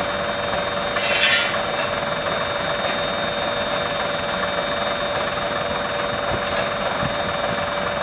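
Class 121 'bubble car' diesel railcar idling at a standstill, its underfloor diesel engine running steadily. There is a brief hiss about a second in.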